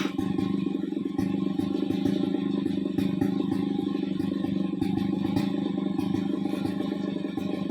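Two-stroke chainsaw engine running at a steady speed, with scattered light clicks and knocks.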